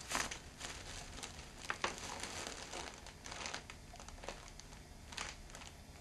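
Dry rice noodles wrapped in thick material, worked close to the microphone as a bone-sawing foley effect: irregular, muffled crunching and crackling.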